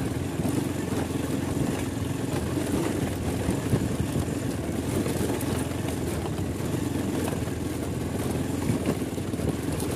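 Motorcycle engine running steadily while riding an offroad dirt track.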